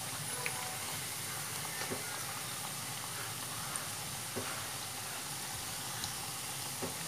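Potato and onion pakode deep-frying in hot oil: a steady sizzle with a few faint crackles.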